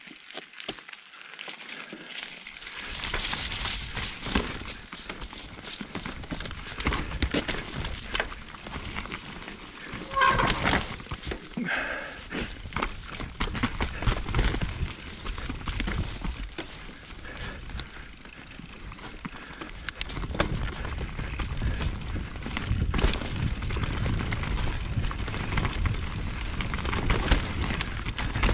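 Mountain bike riding fast down a dirt forest trail: steady rush of wind on the camera microphone and tyres rolling over dirt, with constant clattering and knocking as the bike bounces over roots and bumps. A short pitched squeal about ten seconds in.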